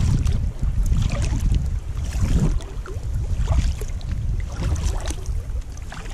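Sea kayak being paddled over calm water, the paddle blades splashing and dripping with each stroke, over a low rumble of wind on the microphone.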